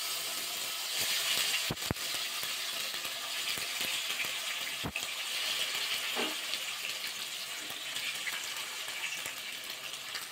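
Spice-coated rui (rohu) fish pieces sizzling steadily in hot mustard oil in a kadai, with a few sharp pops and clicks.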